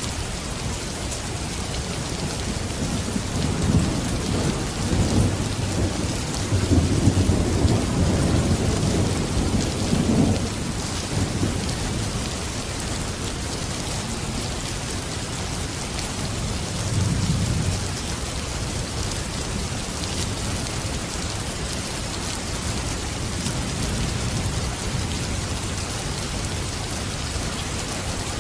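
Steady rain with rolling thunder: a long low rumble from about three to ten seconds in, and a shorter one around seventeen seconds.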